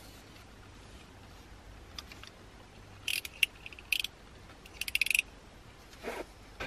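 Quiet background broken, from about three seconds in, by four short rattling, clattering bursts of handling noise.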